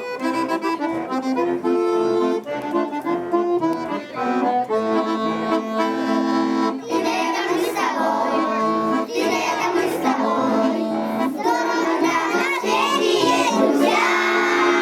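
Music with steady held instrumental notes, joined about halfway through by children singing.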